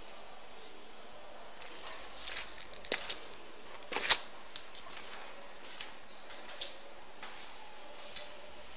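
Scattered faint ticks and light rustles over a low hiss, with one sharp click about four seconds in.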